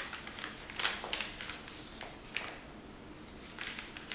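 Handling noise from a Bosch GWS 7-115 E angle grinder's plastic housing and power cord as it is turned over in the hands: scattered light clicks and rustles, a small cluster about a second in and a few more near the end. The motor is not running.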